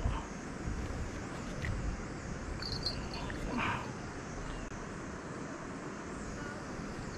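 Riverside ambience: a steady low rush, with a few short high chirps a little under three seconds in and a brief brighter call at about three and a half seconds.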